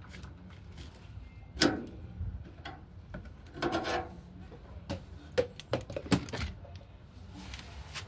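Hands handling a washing machine's drain pump and hoses: scattered clicks and knocks, the sharpest about one and a half seconds in and again around six seconds in, with a short cluster of rattling near the middle.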